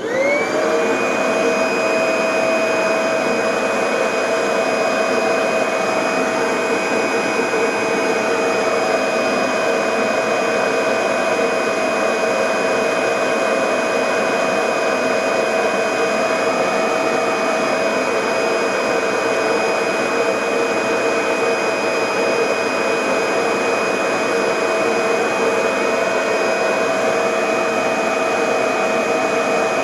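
Kirby G5 vacuum motor starting up, its whine rising for about a second, then running steadily at full speed. It blows its exhaust through a vacuum bag under a filtration test.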